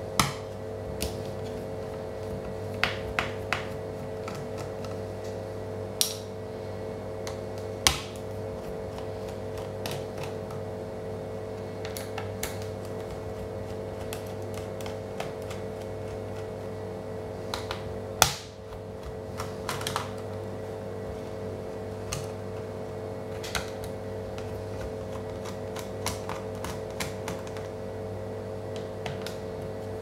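Scattered sharp clicks and taps of a screwdriver and fingers on the metal and plastic underside of a Dell Latitude D430 laptop as screws and parts are worked on, the loudest click about halfway through. A steady hum runs underneath.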